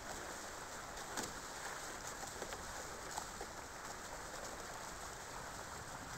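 Steady rush of water along a Hobie 17 catamaran's hulls under sail, with a few sharp ticks or slaps.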